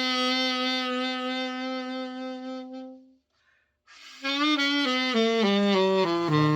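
Alto saxophone, the overhauled Yamaha YAS-62S, playing a melody: a long held note that fades away, a short pause, then a new phrase of stepping notes, with a low accompaniment joining near the end.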